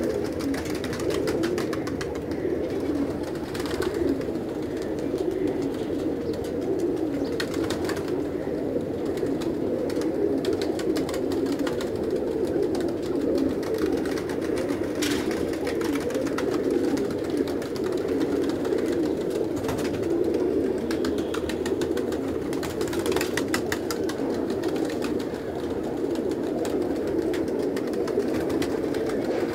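A large flock of domestic pigeons cooing together in a dense, steady chorus.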